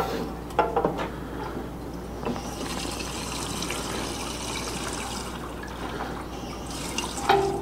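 Gasoline poured from a gas can into the fuel tank of a chipper shredder's Briggs & Stratton engine: a steady pour that starts about two seconds in and stops about seven seconds in. A few light knocks of the can come before the pour and one after it.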